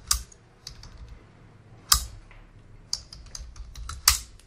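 Computer keyboard typing: a quick run of keystrokes as terminal commands are entered, with three louder key strikes roughly two seconds apart.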